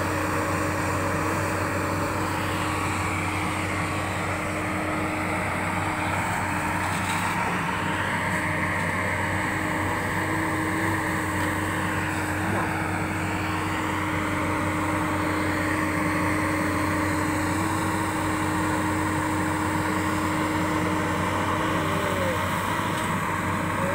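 JCB crawler excavator's diesel engine running steadily under digging load, with a hydraulic whine that rises and falls every few seconds as the boom and bucket work the soil.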